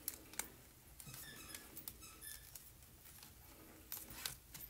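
Faint handling of small paper-craft pieces: a few light clicks near the start and again near the end, with soft rustling between, as a glue dot is peeled off and pressed onto the card.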